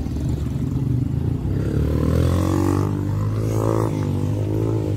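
Road traffic with motorcycle and car engines passing. From about a second and a half in, a motorcycle engine rises and falls in pitch as it revs.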